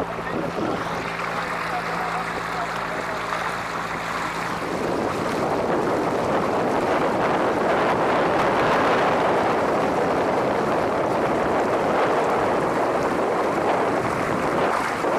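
Tour boat's motor running steadily as the boat moves along. About five seconds in, a louder, even rushing hiss of wind and water covers the motor note.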